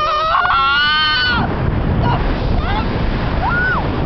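A person's high, held wail during a paragliding manoeuvre, rising slightly and breaking off about a second and a half in, then two short rising-and-falling cries. Strong wind rushes over the microphone throughout.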